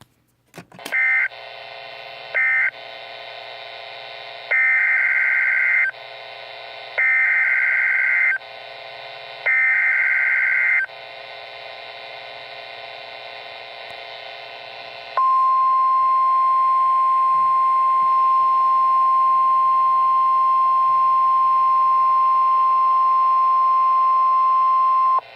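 NOAA Weather Radio EAS signalling. Near the start come two short end-of-message data bursts. Then three longer SAME header bursts, the screechy two-tone data chirps, sound about two and a half seconds apart. After that the steady 1050 Hz weather-radio warning alarm tone sounds for about ten seconds over faint radio hiss, announcing the next warning.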